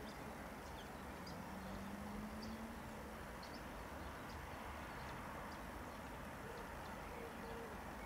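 Faint outdoor ambience: short, high bird chirps scattered over a steady background hiss, with a faint low drone for about a second near two seconds in.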